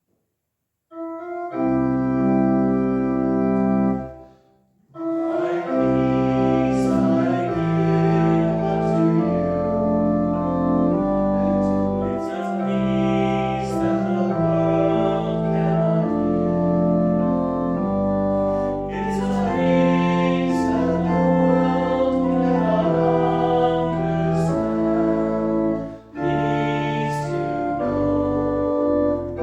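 Organ playing slow, sustained chords. One chord sounds about a second in and stops near four seconds, then after a short break the chords run on, changing about every second.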